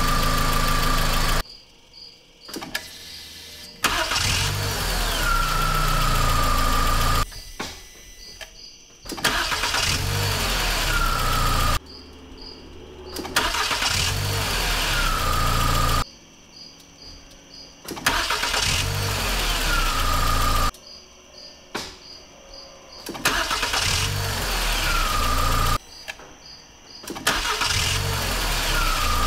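VW Jetta 2.0 four-cylinder engine started over and over with a newly fitted starter: about six times it cranks briefly, catches and runs for three or four seconds, then is switched off. A high whine glides down and settles a couple of seconds after each start, and a few faint beeps sound in the short quiet gaps. The repeated starts are a test for a starter that sometimes stays engaged after the engine fires.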